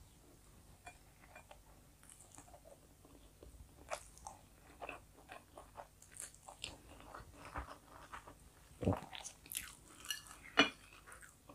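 Close-miked chewing of a mouthful of rice and breaded chicken fillet: soft, irregular wet mouth clicks and small crunches, with a couple of louder sharp clicks near the end.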